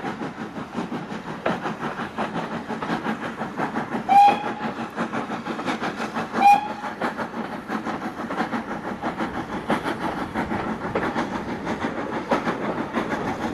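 Steam-hauled heritage train running at speed, heard from an open carriage window as a steady, rapid rhythmic rumble and clatter. The locomotive's whistle gives two short toots, about four and six and a half seconds in.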